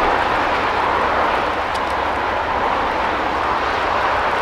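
60163 Tornado, a Peppercorn A1 Pacific steam locomotive, working hard up a steep climb. From a distance its exhaust blends into a steady roar, mixed with wind noise.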